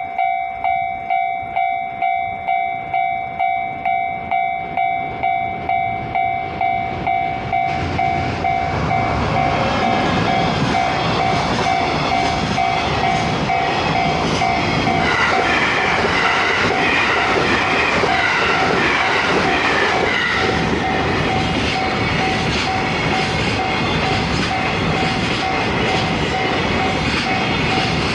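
Japanese level-crossing alarm bell ringing at about two strokes a second. From about eight seconds in, a JR West 225-series electric train passes close by, and its wheel and rail noise drowns the bell for the rest of the time.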